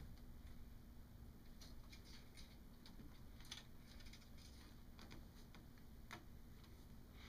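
Near silence with faint, irregular soft clicks and scuffs: kittens' paws and claws catching on carpet as they play.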